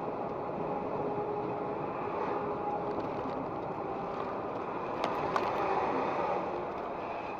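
Steady road and engine noise of a truck driving at highway speed, heard from inside the cab, with a faint steady hum and two brief ticks about five seconds in.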